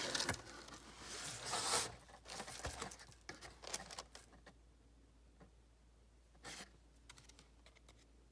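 Paper packaging of a subscription box being handled: rustling and crinkling, with a louder rustle about a second in, scattered light clicks and rustles after it, then mostly quiet apart from one short rustle near the end.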